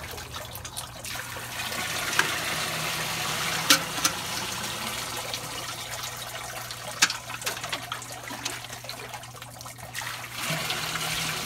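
Watery clay slip pouring from a metal bucket and trickling through a window-screen strainer into the bucket below, with a few sharp clicks.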